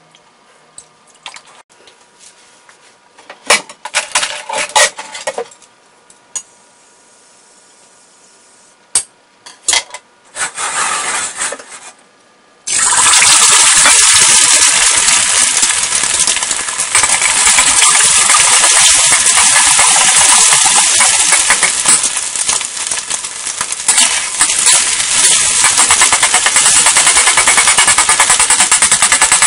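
A few quiet clinks and knocks, then a sudden loud sizzle about thirteen seconds in as eggs hit hot oil in a steel wok, frying steadily from there. Near the end a metal spatula scrapes and taps against the wok as it cuts up the eggs.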